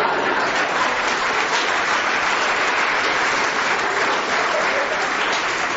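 Live audience applauding steadily in response to a comedian's punchline.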